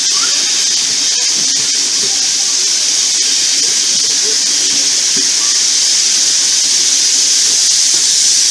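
Steady, loud hiss of air rushing past the open window of a moving heritage railway carriage.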